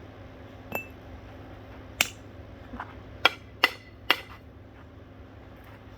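Sharp clinks and knocks of glass and metal as a ceiling fan's glass light fixture is struck, about six hits. The loudest comes about two seconds in, followed by a quick run of three between three and four seconds.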